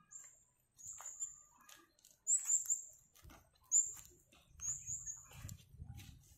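A small bird's high, thin chirps, repeated about once a second, sometimes as quick double or triple notes, with footsteps through grass and weeds underneath.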